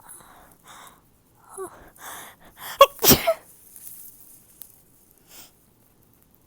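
A woman sneezing: a few short, catching intakes of breath build up to one loud sneeze about three seconds in, followed by a breathy exhale and a short sniff near the end.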